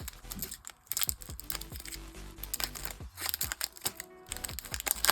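Trading cards being handled and flipped through, making a string of short clicks and rustles, with background music underneath.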